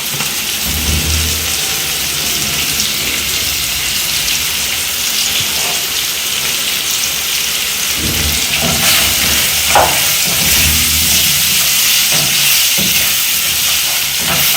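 Liver frying in a pan with sauce, a steady sizzle throughout, with a few low bumps from the pan along the way.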